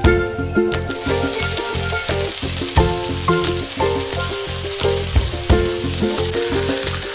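Leafy greens frying in oil in a pan, a steady sizzle that rises about a second in, with rhythmic background music.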